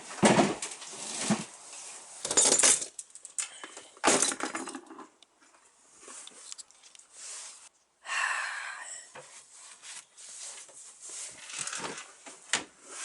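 Irregular clattering and knocking of hard objects being handled, with a longer scraping sound about eight seconds in and scattered small knocks after it.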